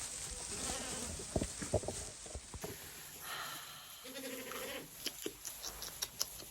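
A young pet lamb bleats once, a call of about a second and a half a little past the middle, among light taps and knocks.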